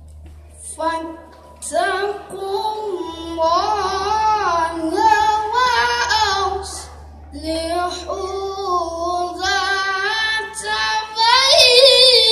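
A boy reciting the Qur'an in melodic tilawah style through a microphone: long, held phrases with wavering, ornamented pitch, with a pause for breath about seven seconds in.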